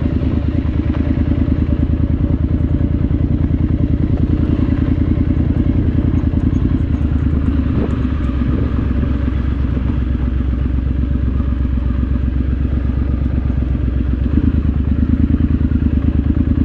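Triumph Scrambler 900's parallel-twin engine running steadily at low revs while the bike rolls slowly over gravel, picking up slightly about fourteen seconds in.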